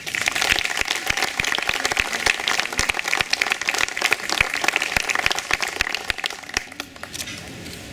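Audience applauding a swimmer's introduction, dense clapping that thins out and fades near the end.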